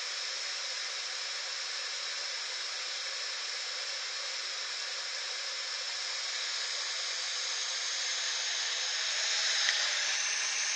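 Steady hiss with no tone in it, growing a little louder over the last few seconds, with one faint click near the end.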